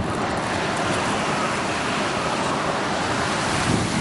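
Atlantic Ocean surf washing onto a sandy beach: a steady hiss of breaking waves.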